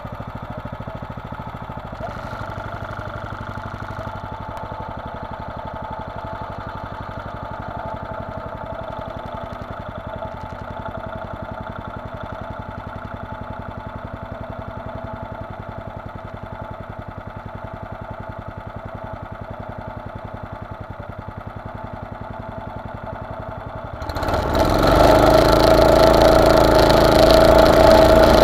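Honda GX390 single-cylinder four-stroke engine on an off-road buggy idling steadily, then opened up to high revs near the end as the buggy pulls away.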